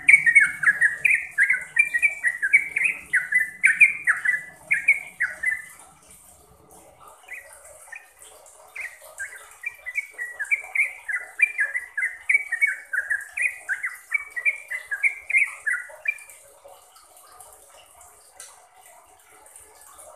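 Yellow-vented bulbul (trucukan) singing: quick runs of short chattering notes, each falling in pitch, about three a second. It sings in two bouts with a pause of about two seconds between them, and the second bout stops a few seconds before the end.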